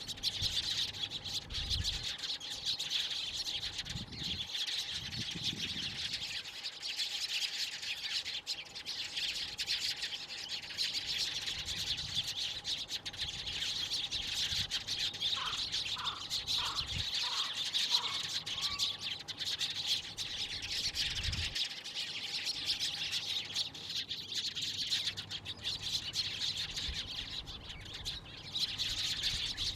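Many small birds chirping at once in a steady, dense chorus. About halfway through comes a short run of about six lower, evenly spaced pips, roughly two a second.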